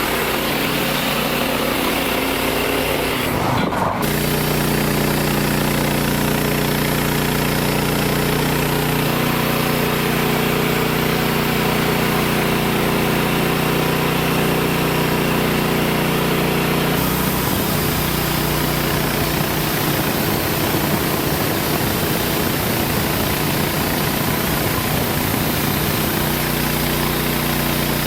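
Engine of an LX55 portable band sawmill running steadily while the band blade saws a white pine log. The engine note shifts about four seconds in and again around seventeen seconds.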